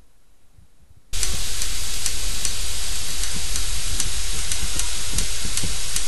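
Faulty intelligent power module (YPPD-J016E) on the Y-sustain board heatsink of a Toshiba 50HP86 plasma TV clicking about twice a second over a loud steady hiss that starts about a second in. The clicking is the sign of a failed IGBT inside the module.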